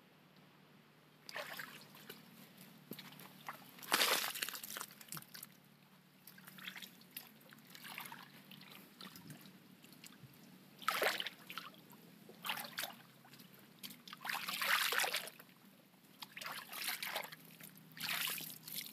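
Water splashing, sloshing and trickling in irregular bursts a second or few apart, the loudest about four seconds in: liquid being poured and slopped out in shallow water or mud.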